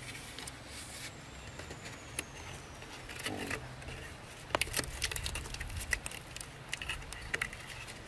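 Scattered light clicks and taps over a low steady rumble, thickest and loudest a little past the middle.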